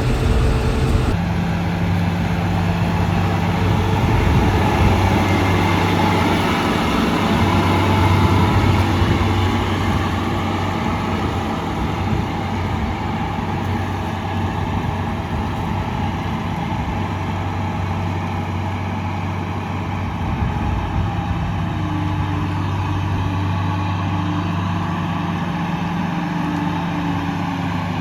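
John Deere 6600 combine running steadily, a deep, even engine hum.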